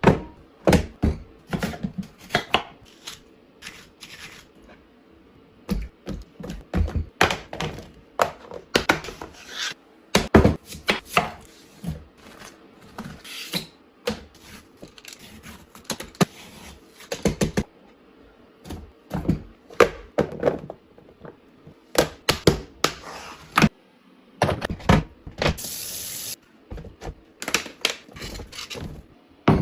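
Groceries and containers being handled and set down while restocking a refrigerator: an irregular run of sharp knocks, clicks and thunks. A short steady hiss comes in about 25 seconds in.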